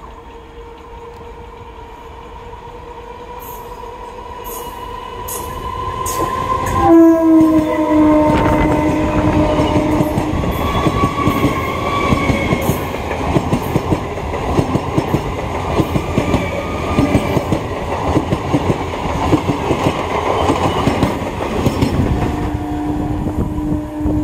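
An Indian Railways EMU local train sounds its horn as it approaches, the horn's pitch dropping as the train passes about seven seconds in. The carriages then clatter past over the rail joints, and another horn sounds near the end.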